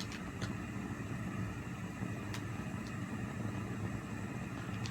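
Steady low mechanical hum of a kitchen, with a few light clicks and taps of handling.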